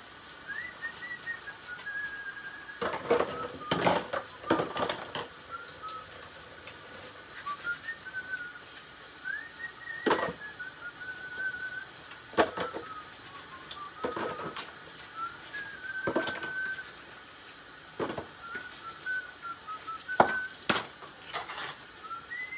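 A person whistling a slow melody over repeated clinks and clatters of dishes and utensils being washed.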